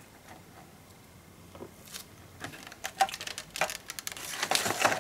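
Clear plastic clamshell packaging crackling and clicking as it is pulled apart and lifted off a model train. Mostly quiet at first, with the rustling growing denser and louder near the end.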